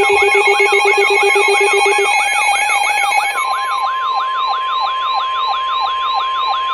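Electronic emergency alert tones: a siren-like falling sweep repeating about four times a second, layered at first with a rapidly pulsing low tone and high steady tones that cut off two to three seconds in. A steady single-pitch tone then comes in, typical of the NOAA Weather Radio 1050 Hz warning alarm tone that comes before a warning message.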